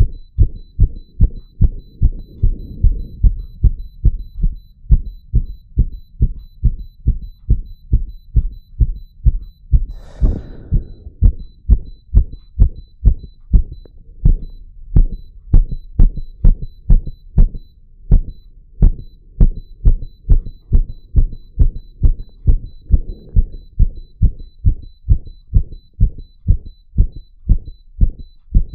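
Rapid, even heartbeat heard through a stethoscope, low thumps at about two a second, with the faint steady beep of an ECG monitor keeping time. About ten seconds in, a brief scratchy rustle cuts across the beats.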